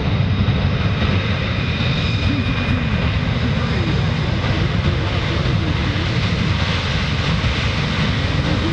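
A C-17 Globemaster III's four Pratt & Whitney F117 turbofan engines running steadily as the transport taxis: a dense, steady rumble with a thin high whine on top.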